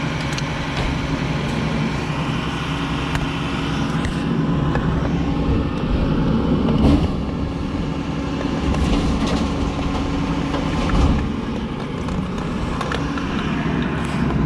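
A motor vehicle engine running steadily close by, with a few short clicks and knocks over it.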